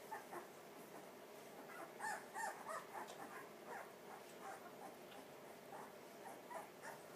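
Newborn blue pit bull puppies giving faint, short, high-pitched squeaks and whimpers, a few of them about two seconds in.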